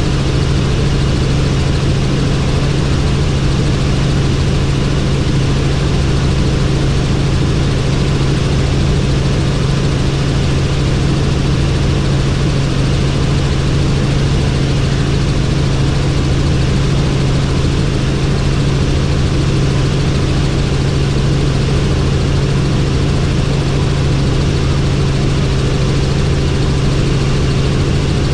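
Helicopter in flight: a steady drone of engine and rotors, with a strong low hum and noise over a wide range.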